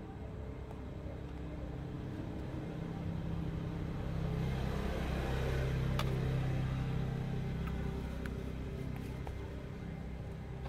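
Low engine rumble of a passing motor vehicle, building to its loudest about halfway through and fading again. A single sharp click comes at the loudest point.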